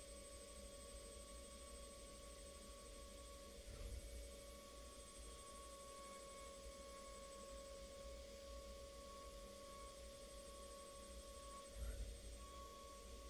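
Air turbine spindle at 40,000 RPM contour-milling 6061 aluminium with a tiny two-flute carbide ball mill: a faint, steady high whine. The upper tone drops out briefly twice, about 4 and 12 seconds in, with a low rumble each time.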